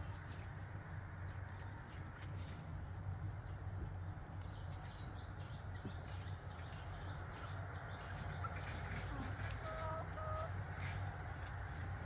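Hand-picking of wild greens, with scattered soft snaps and rustles of stems, over a steady low hum. A hen clucks twice in quick succession about ten seconds in, and faint high bird chirps come and go before that.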